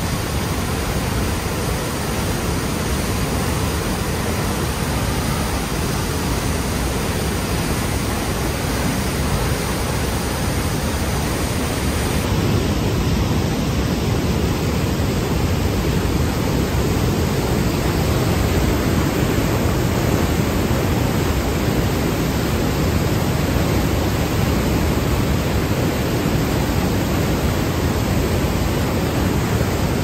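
Sunwapta Falls: a large volume of river water crashing over the falls and churning through the rapids above them, a loud, steady rushing.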